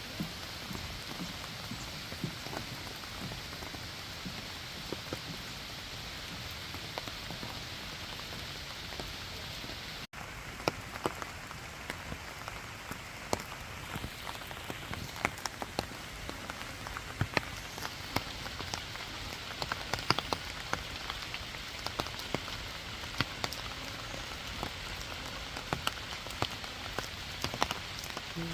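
Waterfall's steady rush of falling water, with sharp splashing drips scattered over it after a brief dropout about ten seconds in.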